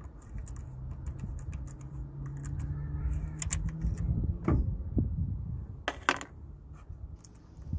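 Small, sharp clicks and taps of a metal screw and Allen key being handled as the MAP sensor's single retaining screw is taken out. A low steady hum lies under the first half.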